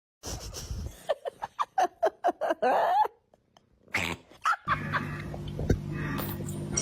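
A pet animal makes a rapid string of short pitched calls, about four a second, ending in a longer call that rises in pitch. After an abrupt silence a different recording starts, with a steady low hum and a few soft clicks.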